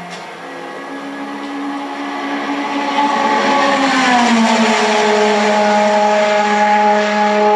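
Race car engine sound effects from a cassette demonstration tape, played back through a Panasonic RS-466S boombox's speakers. The engine note grows louder and then drops in pitch about four seconds in, as a car passes by.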